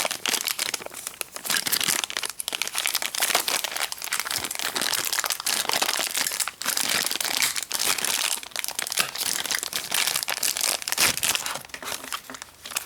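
Plastic toy packaging crinkling and rustling continuously as it is handled and opened, with dense crackles, dropping off near the end.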